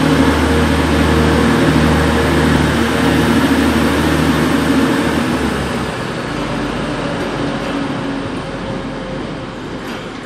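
TransPennine Express Class 185 diesel multiple unit pulling out, its engines running with a steady low note. About five seconds in the engine note drops away, and the sound fades as the train draws off.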